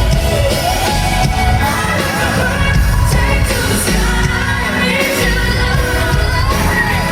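Live concert music: a female lead singer's voice sweeping up and down in vocal runs over a band with a heavy bass, amplified through a stadium sound system.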